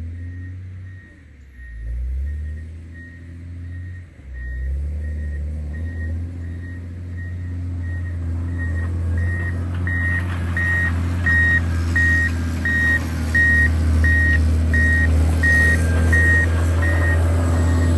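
John Deere 670GP motor grader's diesel engine running, with its reversing alarm beeping steadily about one and a half times a second as the grader backs up. The engine grows louder a few seconds in, and the beeping gets louder around the middle.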